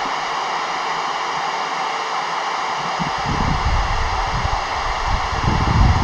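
FM radio receiver hissing with static on the AO-91 satellite downlink, no station coming through. From about halfway, a gusty low rumble of wind on the microphone joins it.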